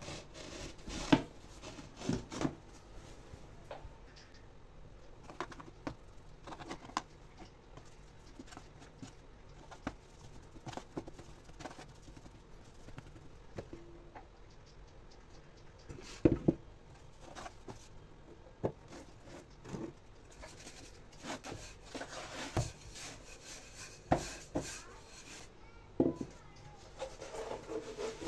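Hands working a round of yeast dough on a floured wooden board: a cloth pulled off, the dough pressed and patted, with soft rubbing and rustling and a few sharp knocks against the board.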